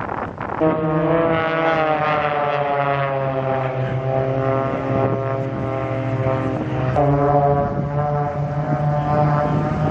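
Extra EA-300 aerobatic planes flying overhead: the drone of their six-cylinder Lycoming piston engines and propellers. The pitch sags slowly as they pass, and a higher-pitched drone cuts in abruptly about seven seconds in.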